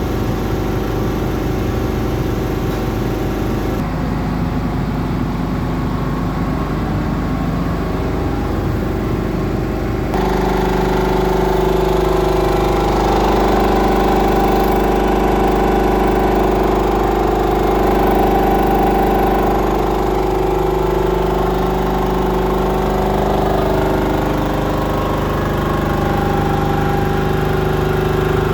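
Hatlapa V200 marine reciprocating air compressor running steadily on a test bench. About ten seconds in its tone changes and a stronger, slowly wavering hum joins the running.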